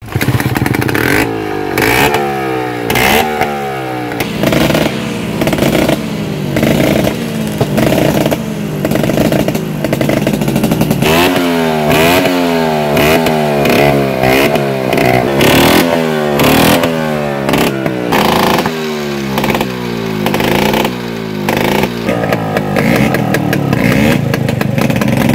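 Two-stroke Vespa scooter engine being revved hard again and again in an engine test, its pitch rising and falling about once a second.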